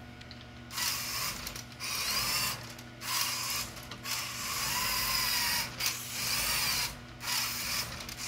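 LEGO Technic remote-controlled car with a large Power Functions motor driving through a plastic gearbox of ten differentials, whirring and grinding in about six short runs as the car drives forward and back. The pitch of the whir rises and falls within the runs.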